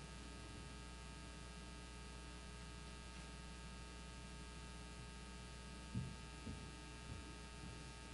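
Steady electrical mains hum in the sound system, with a few soft low thumps about six seconds in.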